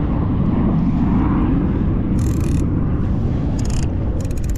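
Wind buffeting an action-camera microphone over the open sea, with boat and water noise. Three short bursts of rapid high ticking cut in near the middle and end.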